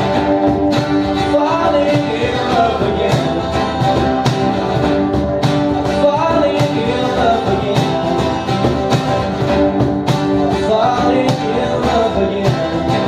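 Live band playing a rock song's instrumental passage between sung lines, with drums keeping a steady beat under a sliding lead melody.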